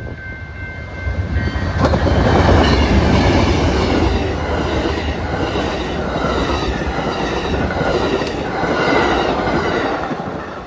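Amtrak Southwest Chief passenger train passing at speed. A steady horn chord cuts off about two seconds in as the diesel locomotives arrive. Then the bilevel Superliner cars rumble and clatter past, with an even rhythm of wheels striking the rail joints and crossing, and the sound fades as the last car goes by near the end.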